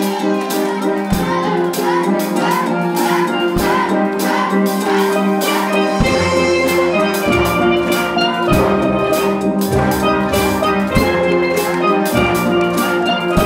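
Steel band music: steel pans playing a brisk rhythmic tune over drums, with deeper bass notes joining about six seconds in.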